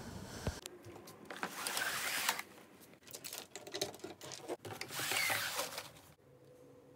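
Light clicks, taps and rustling of small objects handled close to the microphone, coming in short irregular spells.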